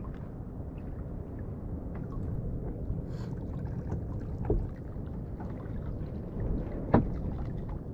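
Water noise and handling knocks on a kayak: a steady low wash of water with a few short knocks against the hull, the sharpest about seven seconds in.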